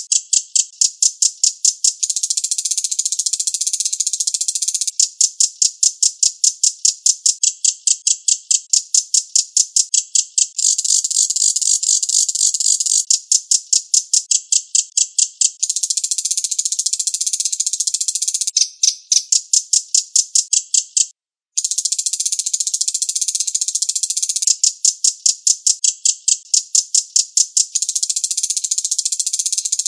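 Recorded Reno bird song: fast, tight runs of high-pitched sharp chattering notes, about seven a second. Spaced-out note runs alternate with denser, buzzier stretches, and there is one short break about two-thirds of the way through.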